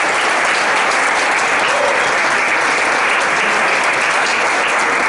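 Conference audience applauding steadily, a dense wash of hand claps welcoming the introduced speaker.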